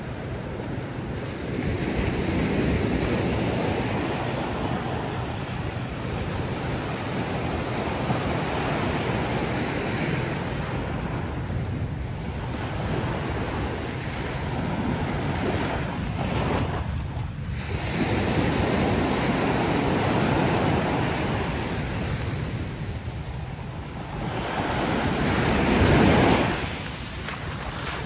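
Ocean surf washing onto the beach, swelling and fading as each wave comes in, with wind buffeting the microphone.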